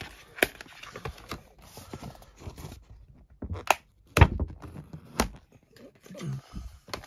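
Paper J-card sleeve rustling and sliding as it is pulled off a metal Blu-ray steelbook case, with several sharp knocks from the case being handled, the loudest about four seconds in.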